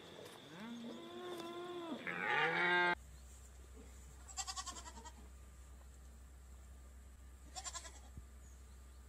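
A drawn-out, pitched animal call that swells and breaks off abruptly about three seconds in, followed by two short, quavering goat bleats a few seconds apart.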